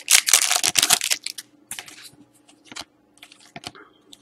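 Foil wrapper of a trading-card pack crinkling and tearing open, loud for about the first second. Then lighter, scattered clicks and rustles as the cards are slid out and thumbed through one by one.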